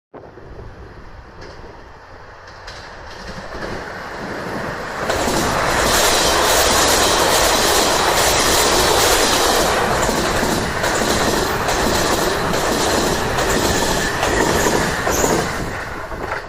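E259 series Narita Express electric train passing at speed. Its noise grows over the first few seconds and is loud for about ten seconds, a dense rush of wheel and running noise with repeated clicks as the wheels cross rail joints. It falls away right at the end.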